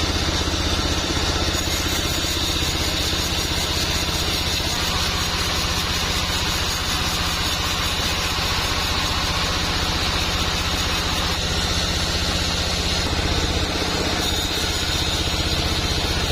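A sawmill's engine running steadily at an even speed, a constant low hum with fast, even firing pulses.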